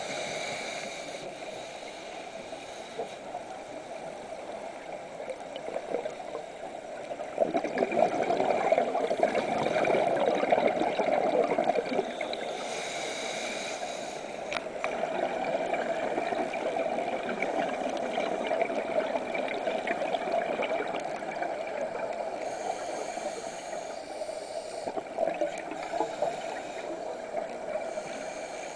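Underwater bubbling and gurgling, likely from a diver's exhaled bubbles, heard through an underwater camera. It swells louder twice, from about 7 to 12 seconds in and again around 16 to 21 seconds, over a steady background wash.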